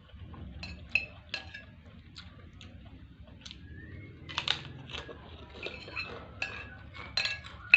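Cutlery clinking and scraping against a dish of rice and rawon soup while eating, a string of sharp irregular clinks, the loudest near the end.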